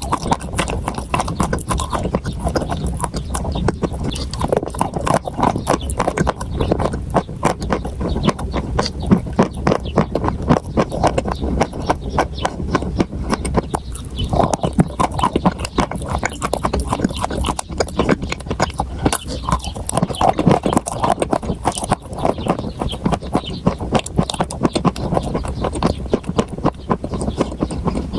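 Dense, continuous crunching of food being chewed, many sharp crunches a second with no pause.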